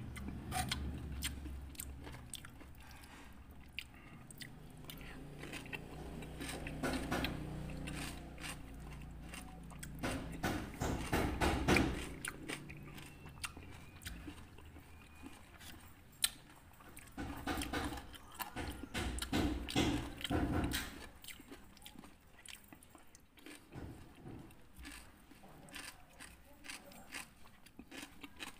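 Close-up chewing and crunching of rujak buah, crisp raw fruit pieces in spicy palm-sugar sauce, with wet mouth sounds. There are louder bouts of crunching about ten seconds in and again near the two-thirds mark.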